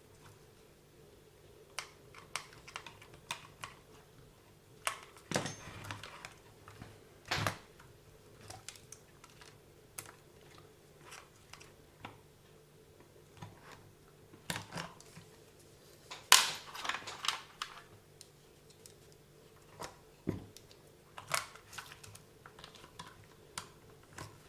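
Scattered light clicks and taps of small plastic and metal parts being handled on a WLtoys 144001 RC car's drivetrain, with a cluster of louder clicks about two thirds of the way through. A faint steady hum runs underneath.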